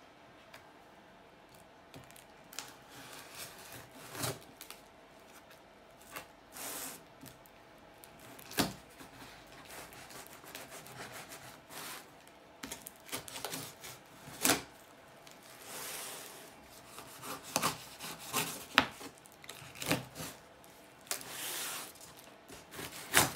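A large knife slicing and sawing through packing tape and cardboard on a box: irregular scraping and tearing with a few sharp knocks. Near the end a cardboard flap is pulled up, tape ripping away.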